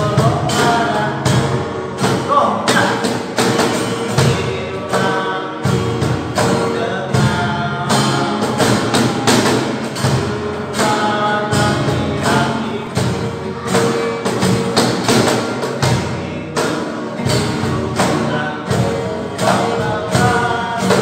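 Classical nylon-string acoustic guitars strummed in a steady rhythm, with thumping percussive beats underneath.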